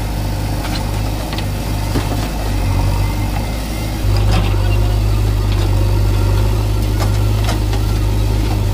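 Diesel engines of a JCB 3DX backhoe loader and an HMT 3522 tractor running steadily, getting louder about halfway through. Scattered knocks and clatters come as the backhoe bucket dumps soil into the tractor's steel trolley.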